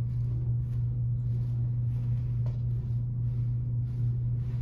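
Steady low hum with faint, soft rustles repeating a few times a second as a person rolls her upper back on a dense foam roller on an exercise mat.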